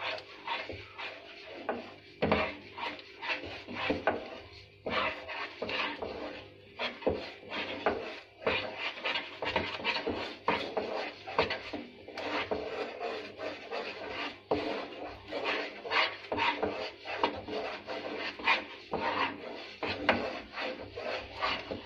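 A utensil scraping and stirring a thick batter of gram flour (besan) and sugar syrup in a pan, in quick irregular strokes, about two a second.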